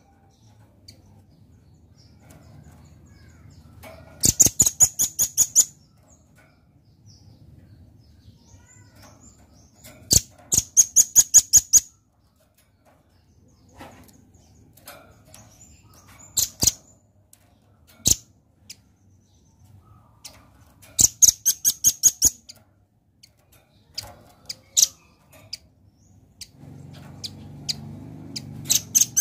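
Velvet-fronted nuthatch calling in bursts of rapid, sharp, high-pitched notes, about seven a second. Each burst lasts a second or so and they repeat several times with pauses between.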